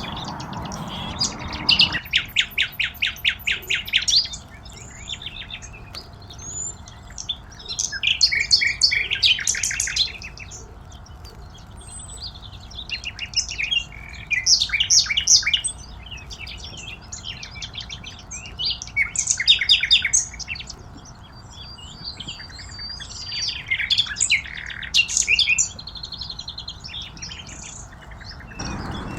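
Songbirds singing: bouts of rapid repeated chirps and trills every few seconds, with short whistled notes between them.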